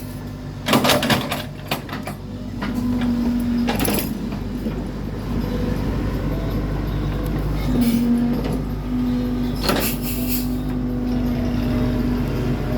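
Heavy diesel machinery engine running steadily, with a droning note that rises and drops away several times under load. Sharp knocks or clanks come about a second in, near four seconds and near ten seconds, the first the loudest.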